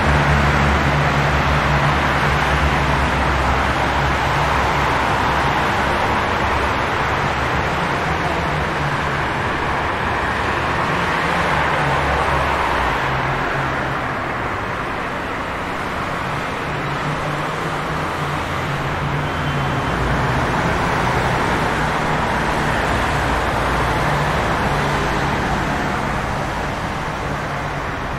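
Steady city street traffic ambience: a continuous rush of passing vehicles, with a low engine hum that is strong at first and fades out about halfway through.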